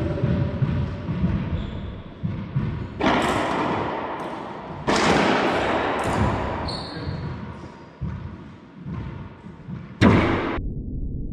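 Racquetball rally: the hard rubber ball cracking off racquets and the court walls, each hit echoing in the enclosed court, with low thuds of footfalls in between. The loudest crack comes near the end, and the court sound cuts off abruptly just after it.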